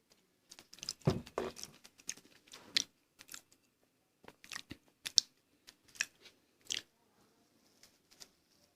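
Close-up chewing and biting of food: irregular wet mouth clicks and small crunches. The loudest bite comes about a second in, and there is a sharp click about five seconds in.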